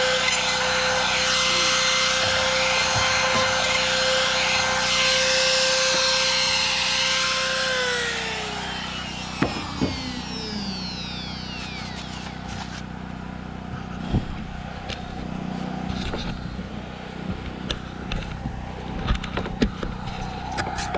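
Trim router running at full speed, cutting a pocket into a timber post: a steady high whine. About eight seconds in it is switched off and winds down with a falling pitch, followed by scattered knocks and clatter of the tool and jig being handled.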